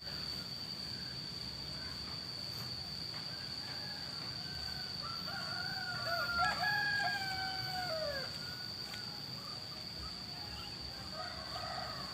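Rooster crowing: one long crow about halfway through that drops in pitch at its end, with more crowing starting near the end. A steady high-pitched tone runs underneath throughout.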